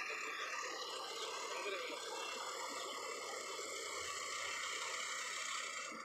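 Yanmar AG600 combine harvester running steadily as it cuts rice, a constant mechanical whir without rises or falls.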